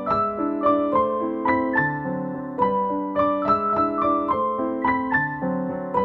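Background instrumental music: a gentle piano melody of struck notes, a few a second, over lower held notes.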